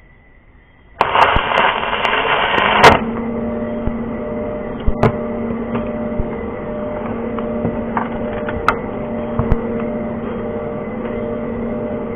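Stick (arc) welding on a rounded-off flywheel bolt: the arc strikes about a second in with a loud crackling sizzle for about two seconds, then settles into a steady buzzing hum with scattered sharp crackles.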